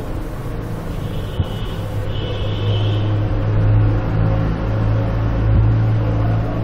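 A low steady rumble with a hum, swelling about two seconds in and easing a little near the end, with a single click about a second and a half in.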